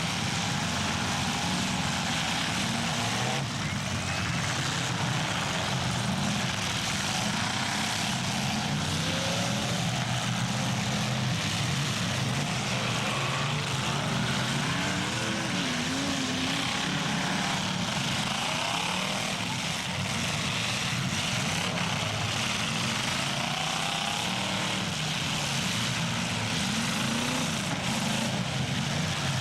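Several demolition derby cars' engines running and revving at once, their pitches rising and falling against one another over a steady background of noise.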